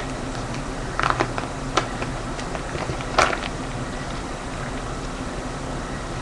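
Plastic card-sleeve pages of a ring binder being handled and turned by hand: a few short crackles and taps about one, two and three seconds in, over a steady background noise.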